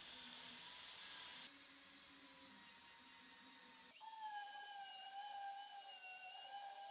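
Angle grinder running and grinding the rusty steel of an axe head, a steady high whine over a gritty hiss. About four seconds in the whine drops a little in pitch.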